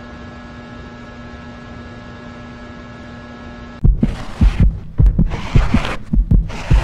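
Horror-meme sound effects: a steady droning hum with several fixed tones for about four seconds, then a sudden switch to loud, uneven low pounding, about three beats a second, each thud carrying a harsh burst of noise.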